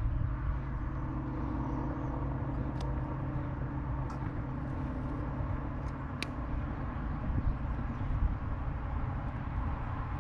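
Steady low rumble of a motor with a faint hum, and a few sharp clicks.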